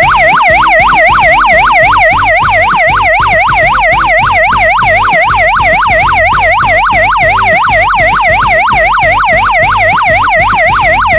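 Electronic emergency alarm sounding from the Escapetor Plus's built-in loudspeaker: a loud siren tone that sweeps rapidly up and down, about four times a second.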